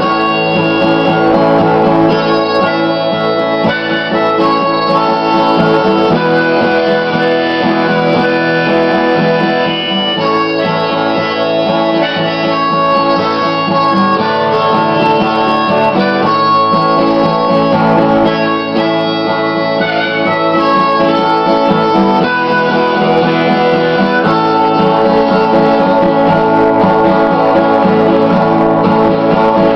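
Harmonica played over a strummed acoustic guitar: an instrumental break with the harmonica carrying the melody.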